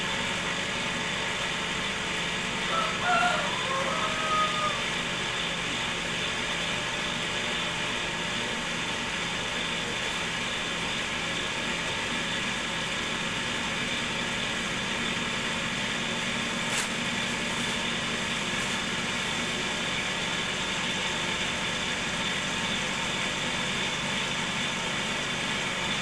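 Cotton candy machine's DC motor running with a steady hum. A rooster crows once about three seconds in, and there is a single short click about two-thirds of the way through.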